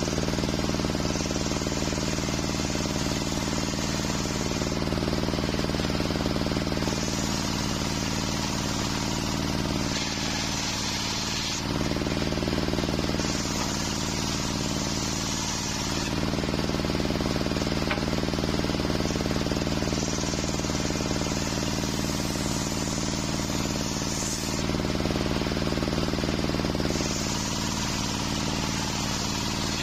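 Homemade circular sawmill with a large saw blade, running and ripping waru wood into rafter stock. A steady hum of the drive runs underneath, and a harsher cutting hiss swells and fades every few seconds as each length of timber is fed through the blade.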